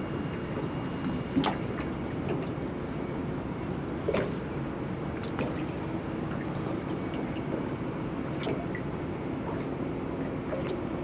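Water lapping and slapping against the hull of a small drifting boat over a steady low rumble, with a few sharper slaps, the clearest about a second and a half and about four seconds in.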